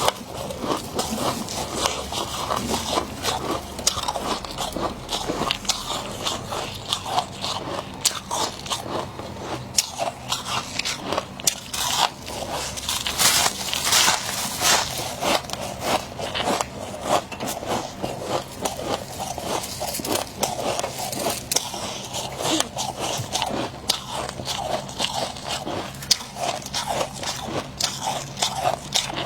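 Fluffy freezer frost being bitten and chewed close to the microphone: a continuous run of crisp, crackly crunches.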